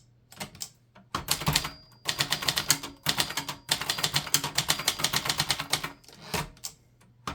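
Brother Deluxe portable typewriter being typed on: rapid runs of sharp key strikes with brief pauses between bursts, and a quieter stretch near the end. The thinly insulated body lets the typing come through as a metallic jing-jing, cha-cha clatter.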